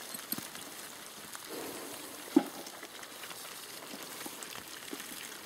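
A wet seine net being handled while fish are picked out of it on dry grass: scattered light patters and clicks, with one sharper knock about two and a half seconds in.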